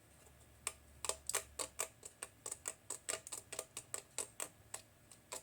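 A quick, irregular run of light clicks and taps, about four or five a second, starting just under a second in: small parts of a disassembled digital multimeter being handled.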